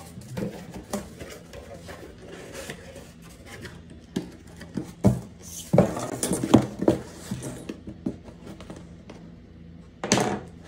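A cardboard parcel box being handled and laid down on a wooden table: scattered knocks and scraping, with a run of louder knocks and rubbing about halfway through and one more sharp knock near the end.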